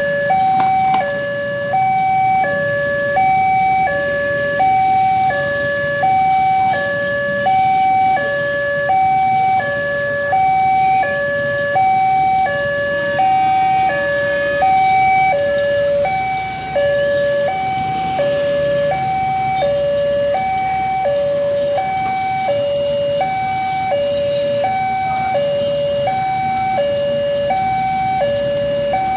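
Electronic railway level-crossing warning alarm sounding, a two-tone signal stepping steadily between a higher and a lower note about every three-quarters of a second, which warns that a train is approaching.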